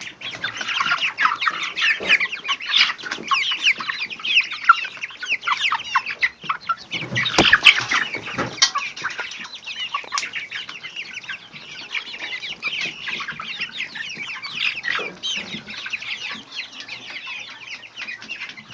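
A pen of young chickens peeping and clucking continuously, many short high calls overlapping. A few knocks are heard about seven to nine seconds in.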